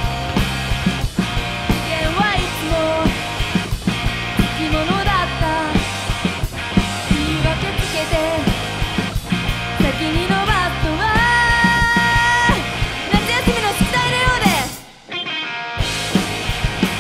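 Live rock band playing an instrumental passage on drum kit, bass and electric guitar. A lead line of sliding, bending notes runs over it, with a long held note about two-thirds of the way through. The band stops dead for under a second near the end, then comes back in.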